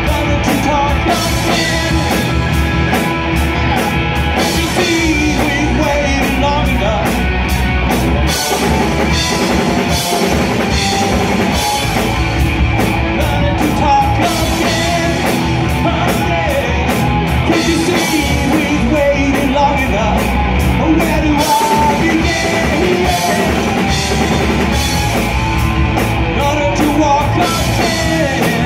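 Live rock band playing: two electric guitars, electric bass and a drum kit, with a lead singer.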